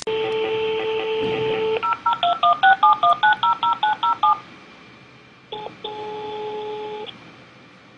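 A telephone handset's steady dial tone stops after about two seconds, followed by about a dozen quick two-tone keypad beeps as a number is dialled. A few seconds later a single long ringback tone sounds: the call is ringing at the other end.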